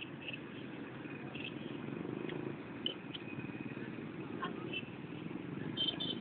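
Steady low rumble of road traffic from cars passing on a nearby street, with a few short, faint high-pitched ticks and chirps on top.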